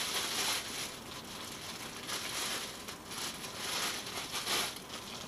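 Clear plastic wrapping crinkling in several bursts as it is handled and pulled off a new spinning reel.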